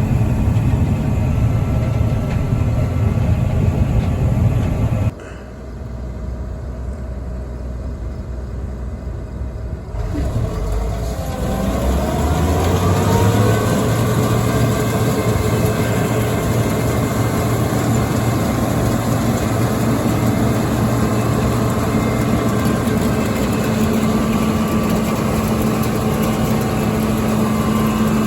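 Heavy farm machinery engines running steadily and loudly. About eleven seconds in, an engine revs up with a rising whine, then holds a steady drone.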